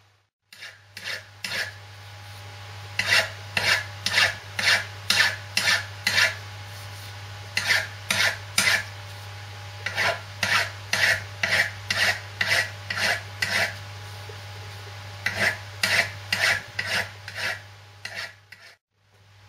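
Hand file rasping across the hardened steel of a Lister D crankshaft held in a vise, taking off burrs: short, even strokes about two a second, in runs with brief pauses between them.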